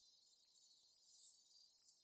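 Near silence: only faint hiss of a muted or gated recording.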